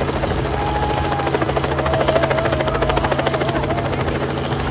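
Helicopter running, its rotor blades chopping in a fast, even rhythm over a steady engine hum.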